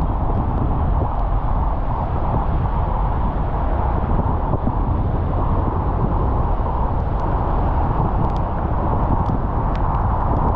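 Steady rumble and hiss of a car driving on a rain-wet road, tyres and engine, with a few faint ticks near the end.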